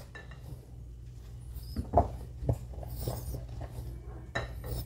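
A metal spoon stirring and scooping mashed potatoes in a glass bowl: soft scrapes with a few light clinks against the glass, over a low steady hum.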